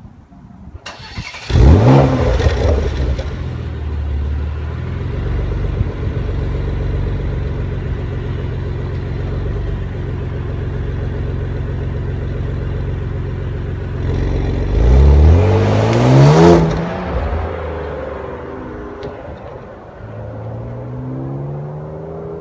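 2016 Porsche Macan Turbo's twin-turbo V6 exhaust at start-up. It cranks and fires with a loud flare about two seconds in, settles to a steady idle, is revved once around fifteen seconds in, then pulls away near the end.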